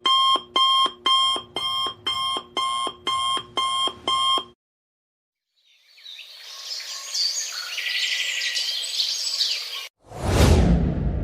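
Alarm-clock sound effect: about nine electronic beeps, two a second, stopping after four and a half seconds. A second, noisy effect with chirping swells up after a short gap and cuts off, and a sudden deep boom follows near the end.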